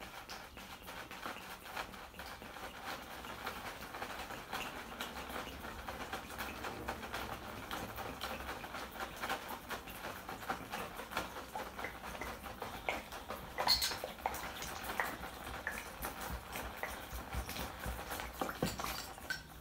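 Water pouring from a glass bottle into a plastic bag onto a dry block of compressed potting substrate, to hydrate it: a continuous splashing patter with crackly ticks. There is a single louder knock or rustle about fourteen seconds in.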